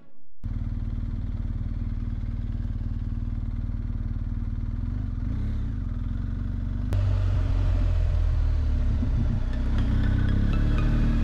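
BMW R 1250 GS Adventure's boxer-twin engine running under way, heard from on board. It cuts in suddenly about half a second in and gets louder about seven seconds in.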